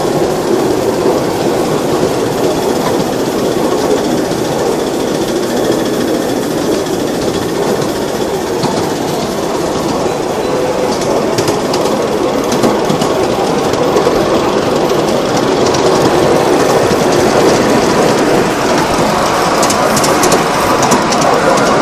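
Ride-on miniature railway train running along its track, heard from a passenger car: a steady rumble of wheels on the rails, with sharp clicks coming in more often in the second half.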